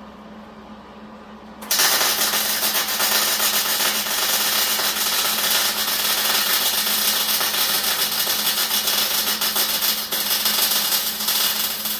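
Electric arc welding: a steady, dense crackling sizzle of the arc laying a bead on a steel corner, starting suddenly about two seconds in. A steady low hum sits underneath throughout.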